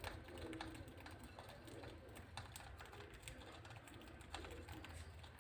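Faint, irregular light clicks and taps around a budgie cage with clay nest pots, over a low steady hum.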